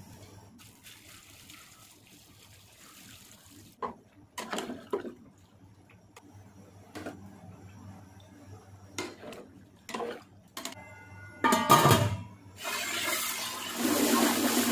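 Scattered knocks and clinks of ingredients and a spoon in a large metal cooking pot, then, from about two-thirds of the way in, a loud, steady rush of liquid pouring into the pot as the mixture is stirred.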